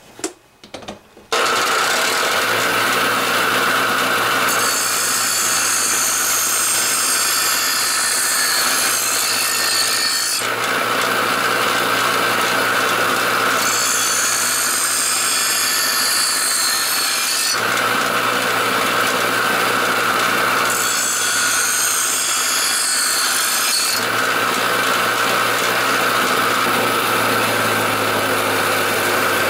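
Bench grinder switched on about a second in and running steadily, while a steel lawnmower blade is run across the spinning wheel in three grinding passes that each add a harsh high hiss; this is the final pass at a lower angle to put the finish edge on the blade.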